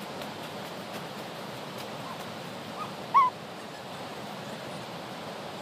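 Steady rushing outdoor noise with a few short pitched calls about two to three seconds in, the loudest a brief bent chirp a little after three seconds.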